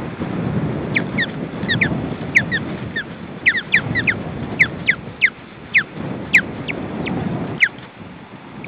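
Ospreys giving a long string of short, high whistled calls, each falling in pitch, in quick irregular runs. Under them, a steady low rumble of wind on the microphone.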